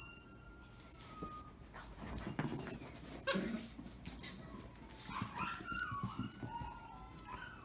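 Small dog whining in high, thin, drawn-out tones while playing fetch with a plush toy: one long whine at the start and a cluster of wavering whines in the second half, with a few soft thumps of paws and toy on the carpet in between.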